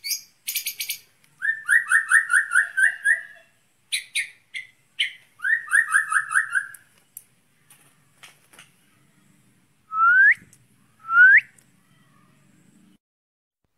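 White-rumped shama (murai batu) singing. It gives fast runs of repeated notes mixed with rapid high chatter, then two short rising whistles near the end.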